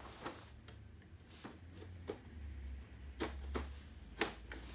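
Small knife cutting open the seal of a cardboard Lego box, with the box handled: a series of irregular sharp clicks and taps, the loudest few in the last second and a half.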